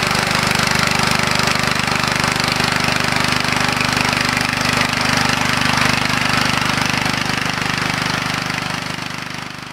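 A 13 HP single-cylinder diesel power tiller running steadily while it tills dry soil, its engine chugging evenly under a dense rattle and hiss. The sound fades out near the end.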